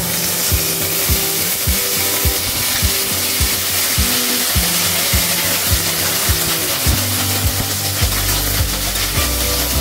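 Onions and vegetables sizzling in hot oil in a kadhai while being sautéed, under background music with a steady beat.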